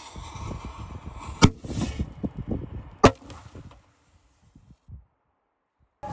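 Bass-heavy music thumps through a floor-standing speaker, broken by two sharp bangs about a second and a half apart as something explodes inside the cabinet. The music then breaks up and cuts out.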